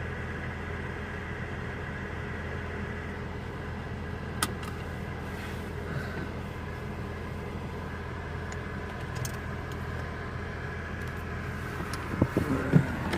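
A car engine idling with a steady hum. There is one sharp click about four seconds in and a few knocks near the end.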